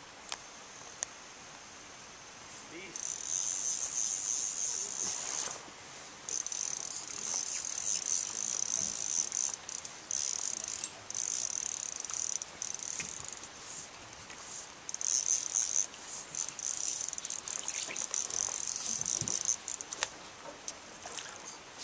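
Fly reel's click drag buzzing in bursts as a hooked coho salmon runs and takes line. The high buzz starts about three seconds in and stops and starts again several times.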